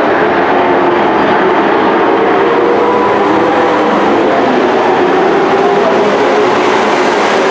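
Several dirt-track race trucks' engines running loud and steady as the field circles the track, their overlapping engine notes wavering together.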